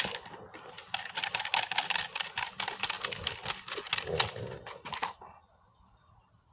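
A rapid run of sharp clacks, about five or six a second, that stops about five seconds in: a decoy's stick striking and rattling during bite work.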